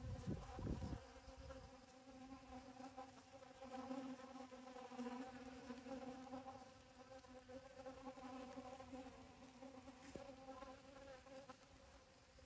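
Honeybees buzzing as they fly around and forage for pollen in a dragon fruit flower: a faint, steady wing hum. There is a brief low rumble in the first second.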